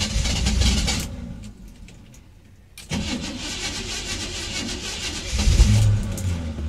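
A pickup truck's starter cranking the engine in two tries, the second about three seconds after the first, without it catching: the truck has stalled after driving through floodwater.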